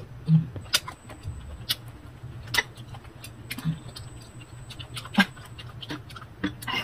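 Close-up chewing of crisp unripe green mango: sharp, wet crunches and mouth clicks, roughly one a second, over a low steady hum.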